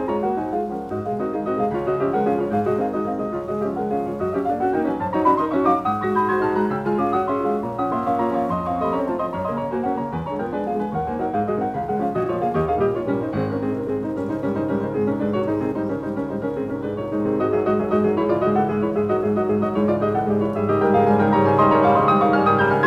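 Background piano music, with a rising run of notes about five seconds in and growing a little louder near the end.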